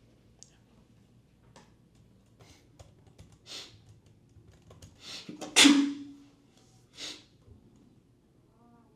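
A man sneezes again: a breathy intake, then one loud sneeze about five and a half seconds in, with softer breathy bursts before and after it. Faint scattered clicks come in the first few seconds.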